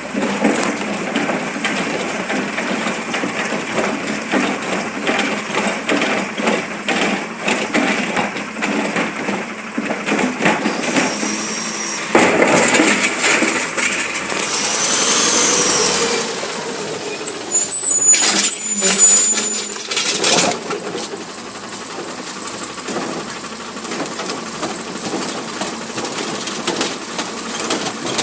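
Recycling garbage truck working a street: its engine runs throughout, a brief hiss comes a little before the middle, the engine noise swells for a couple of seconds, and then comes a loud clatter of recyclables and bangs for a few seconds.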